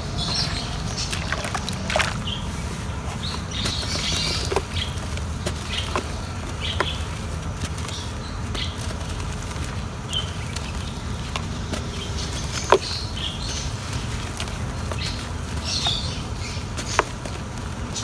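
Huge chunks of pure cement crumbling in water: irregular crackling and crumbling with scattered sharp snaps, two of them standing out, over a steady low rumble.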